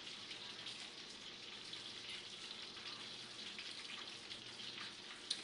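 Chicken pieces frying in hot grease in a pan, sizzling steadily.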